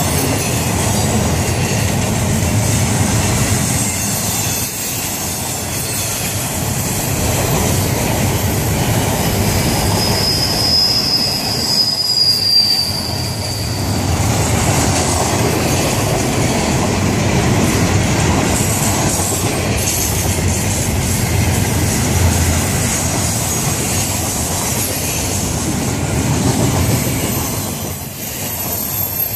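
Double-stack container cars of a freight train rolling past close by: a steady rumble and wheel clatter on the rails. About ten seconds in, a high wheel squeal sounds for a few seconds.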